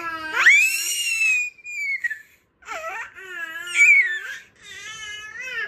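Six-month-old baby squealing and crying out: a high call that climbs sharply in pitch about half a second in and then slides down, followed by two more drawn-out wavering calls.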